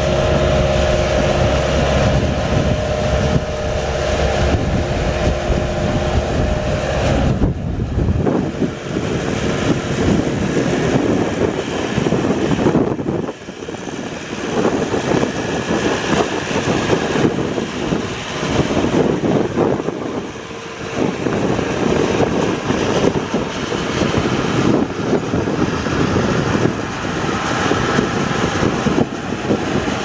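Bobcat 863 skid steer's four-cylinder diesel engine running: a steady even note for about the first seven seconds, then a rougher sound that rises and falls in level for the rest.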